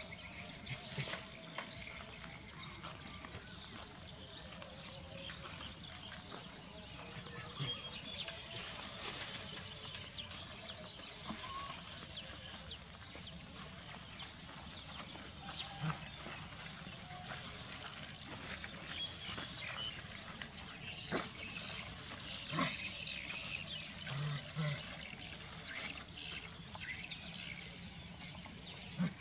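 Quiet outdoor background with faint scattered clicks and rustles, and a few short, low animal sounds in the second half.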